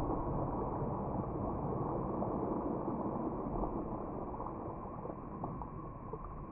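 Radio-controlled speedboat on the water: a steady motor whine over a rush of spray, gradually fading as the boat spins out and capsizes.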